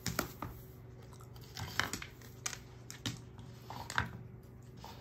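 A German shorthaired pointer nosing through dried treats on a wooden board: scattered light clicks and rustles as the hard chews shift and knock against the board, the loudest near the middle and about four seconds in.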